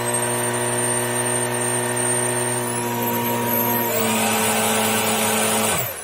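Jimmy JV63 cordless stick vacuum running, its floor-brush motor humming under a high whine. The whine steps up in pitch about two and a half seconds in, a rush of air grows louder about four seconds in, and near the end both wind down as it is switched off.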